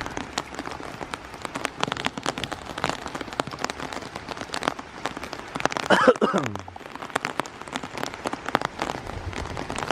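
Heavy thunderstorm rain falling, with many close, sharp drop hits. About six seconds in, a short voice sound falls in pitch.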